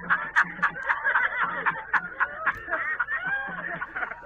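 A man laughing wildly in rapid bursts, about five a second, that break into higher, wavering whoops, in a low-fidelity recording.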